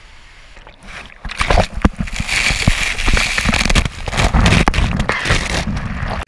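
Rushing water and air on a body-worn camera plunging down a steep enclosed body drop slide, loud and dense from about a second and a half in, with water splashing over the camera and many short knocks through it.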